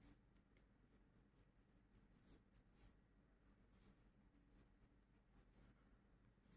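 Very faint, irregular scratchy rustling of a metal crochet hook drawing cotton yarn through stitches.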